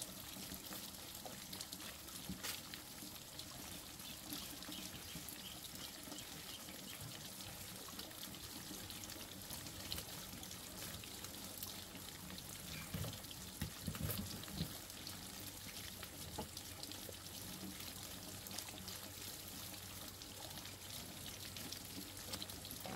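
Stream water trickling steadily over rocks, with a few louder low thuds a little past halfway.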